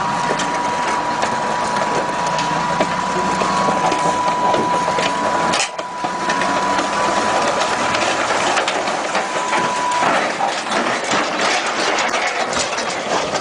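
Tracked self-propelled gun running, its steel tracks clattering, with a steady high whine. The whine stops about ten seconds in, and a run of heavy metallic clanks and knocks follows as the vehicle tips over onto the trailer.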